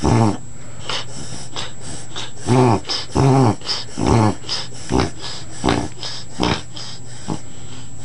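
A dog reverse sneezing: a spasm-like episode of loud, honking snorts pulled in through the nose, repeated about once a second. Two long honks come near the middle, and the later ones grow shorter and weaker.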